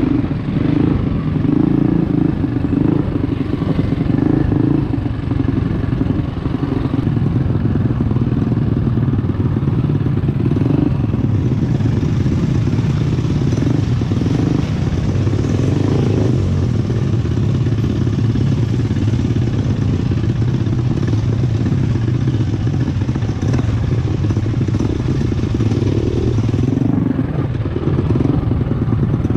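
Trailmaster MB200 mini bike's built Predator 212cc Hemi single-cylinder four-stroke engine running steadily under load on a rough dirt trail, its pitch rising and falling a little with the throttle, with clatter from the bike over the rocky ground.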